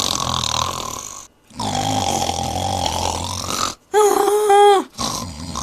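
Loud cartoon-style snoring by a sleeping anime character: two long, rough, buzzy snores. About four seconds in comes a short pitched vocal squeal, and another snore starts near the end.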